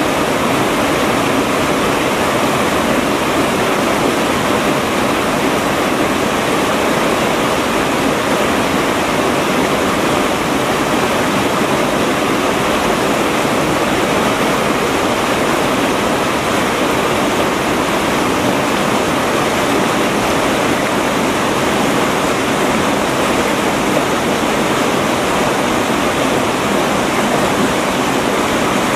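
Rushing mountain river flowing over rocks and small rapids: a steady, loud rush of water that does not change.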